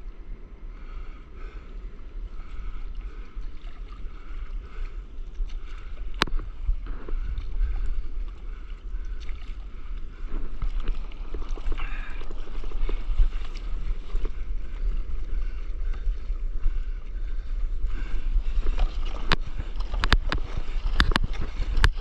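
Stand-up paddleboard moving through the sea: water washing and splashing against the board and paddle over a low wind rumble on the action-camera microphone. The splashes grow sharper and more frequent near the end.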